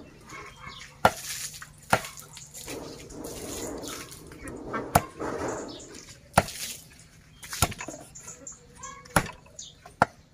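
Steel cleaver chopping skinned frog meat on a wooden stump chopping block: about seven sharp chops at uneven intervals, with a softer noise between them in the middle.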